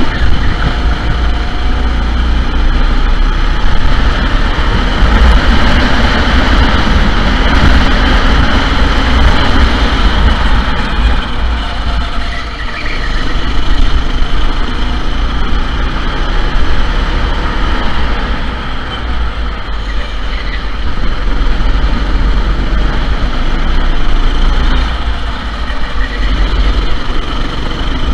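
Sodi SR4 rental go-kart engines running, loud and continuous, with a heavy low rumble.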